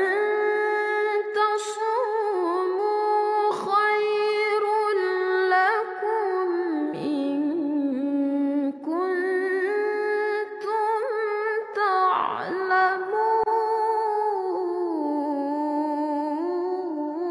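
Wordless sung vocal: a voice holds long notes that slide between pitches. It is the melismatic opening of an Arabic devotional song (shalawat).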